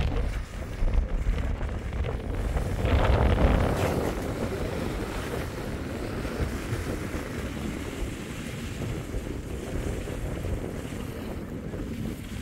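Strong wind buffeting the microphone, a steady low rushing that swells into a louder gust about three seconds in.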